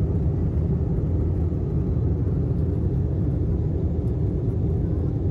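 Cabin noise of a jet airliner in flight, heard from inside the cabin: a steady low rumble of the engines and rushing air, even throughout.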